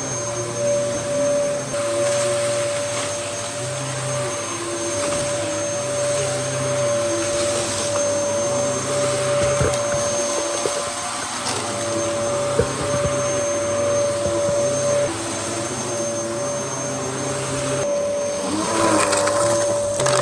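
Dyson DC07 upright vacuum cleaner running: a steady motor whine over the rush of air. The airflow sound shifts briefly near the end.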